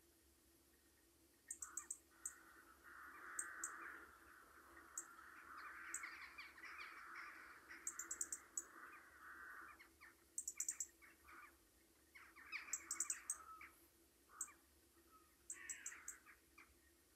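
Faint cawing of crows, many harsh calls overlapping for several seconds, then breaking into a few shorter bursts. Quick clusters of faint high clicks come and go throughout.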